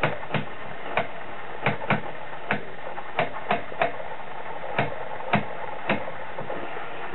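About a dozen sharp clicks at uneven intervals over a steady hiss.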